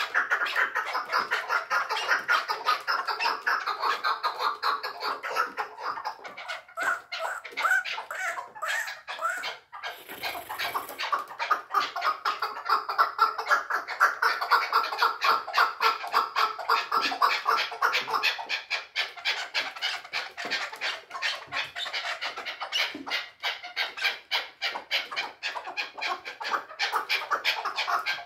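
Caged chukar partridge calling: a long, rapid run of chattering notes, many a second, with a brief break about ten seconds in.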